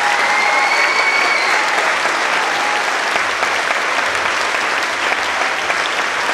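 Theatre audience and performers on stage applauding together, a steady dense clapping of many hands.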